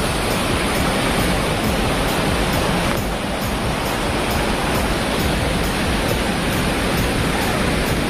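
Waterfall and stream water rushing: a loud, steady, unbroken hiss of falling water.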